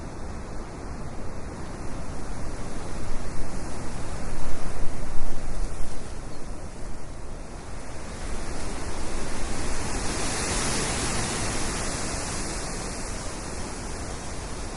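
Rushing sea surf and wind, a steady noise that swells about four seconds in and again around ten seconds in.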